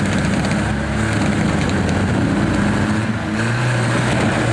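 Engine of a modified Toyota Land Cruiser off-road truck running under load as it crawls over scrapped cars, its rear tyre spinning. The engine note wavers up and down, then settles to a steadier, lower note about three and a half seconds in.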